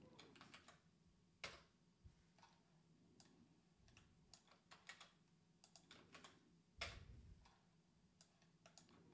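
Faint, sparse computer keyboard keystrokes and clicks, a few scattered taps with the loudest about seven seconds in, as terminal commands are copied, pasted and entered.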